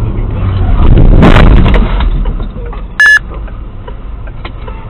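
A loud crash of a vehicle collision, heard from inside a dashcam car, about a second in and lasting under a second. It is followed about three seconds in by a single short, high electronic beep.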